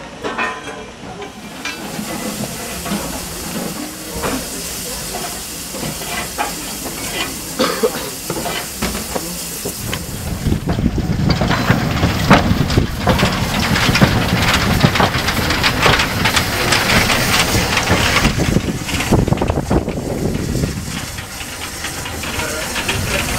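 Saxon IV K narrow-gauge steam locomotive 99 542 hissing steam. About ten seconds in the sound gets louder and heavier, with a low rumble under the hiss, as the locomotive gets moving over the points.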